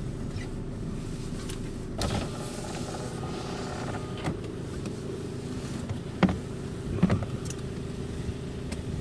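Vehicle driving slowly on a gravel road: a steady low engine and tyre rumble, with a few sharp clicks or knocks spaced a second or two apart.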